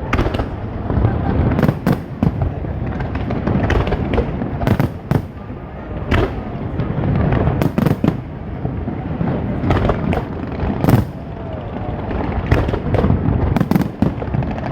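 Fireworks display: many sharp bangs at irregular intervals, often a couple a second, over a continuous low rumble of booms.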